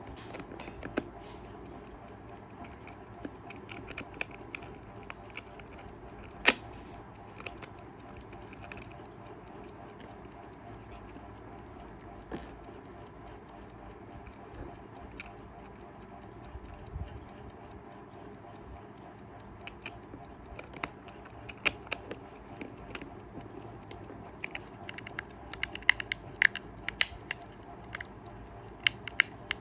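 Kaiser 4 Rubis mechanical travel alarm clock ticking, with occasional sharp handling clicks that become louder and more frequent near the end.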